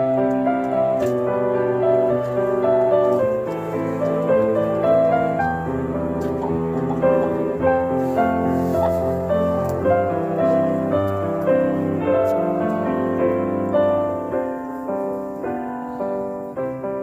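Piano music laid over the pictures, a steady run of melodic notes that grows a little quieter toward the end.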